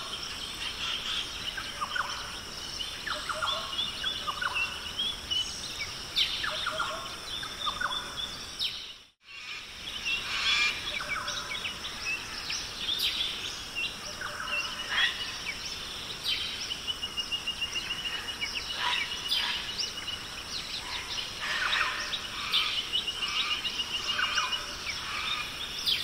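Forest ambience: assorted birds chirping and calling, with several rapid trills, over a steady high insect drone. The sound cuts out for a moment about nine seconds in, then resumes.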